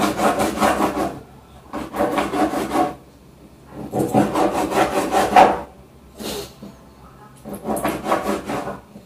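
Repeated rasping, rubbing strokes in five bursts of about one second each, with short pauses between.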